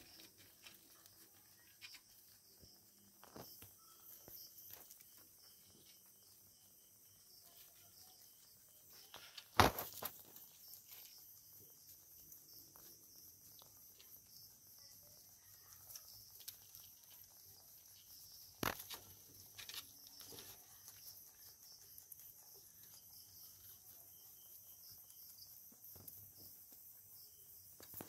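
Faint scuffling and rustling of rabbits shifting in hay on a wooden hutch floor, with two sharper knocks, one about a third of the way in and one about two-thirds in, over a steady high hiss.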